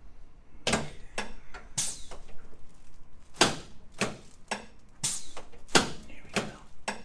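A series of about ten sharp knocks or clicks, irregularly spaced, some coming in quick pairs.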